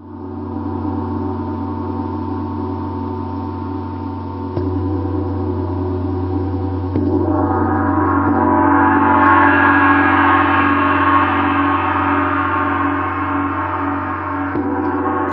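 A sustained drone of many steady ringing tones that fades in, steps up in loudness about four and a half and seven seconds in, and swells brighter through the middle before easing off.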